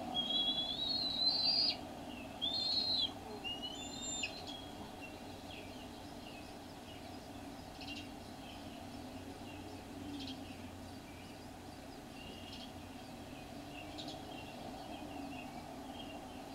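Bird calls: three high, wavering whistled calls in the first four seconds, then faint scattered chirps over a steady low hum.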